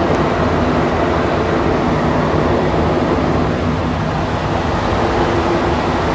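Steady running noise inside a Montreal Metro MPM-10 Azur train moving between stations on rubber tyres: a loud, even rumble with a few faint steady hum tones under it.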